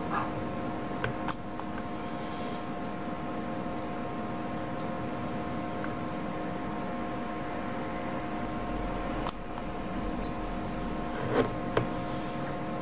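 Steady hum of several tones over a hiss, broken by a few soft taps of a finger on a tablet's touchscreen, the loudest two close together near the end.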